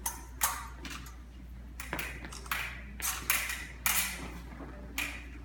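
Epee fencing bout: about eight sharp metallic clinks and taps at irregular intervals, from steel epee blades meeting and feet striking the floor.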